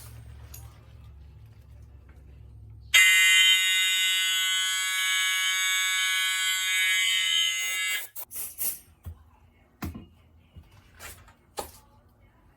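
Fire alarm horn sounding one steady, unbroken tone for about five seconds. It starts abruptly about three seconds in and cuts off suddenly, followed by a few sharp clicks.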